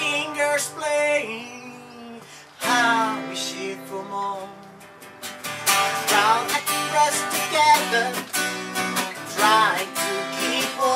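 Two acoustic guitars, a twelve-string steel-string and a nylon-string classical guitar, playing an instrumental passage of strummed chords. The chords die away, a fresh chord rings out about two and a half seconds in, and steady rhythmic strumming picks up about halfway through.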